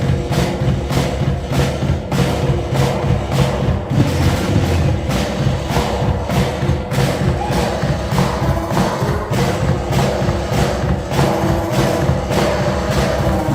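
A live band playing loudly, with a steady drum beat of about three hits a second over a sustained bass line.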